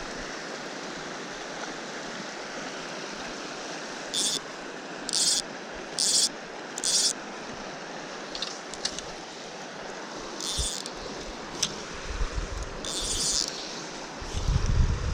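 Fast-flowing mountain stream giving a steady rush of water. Four short, high swishes come about a second apart around four seconds in, with a few more later. Wind buffets the microphone near the end.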